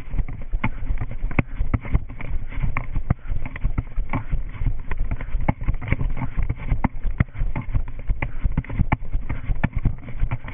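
Running footsteps on a concrete walkway, quick footfalls about two to three a second, over a low rumble of wind and body movement, muffled as heard through a body-worn GoPro action camera.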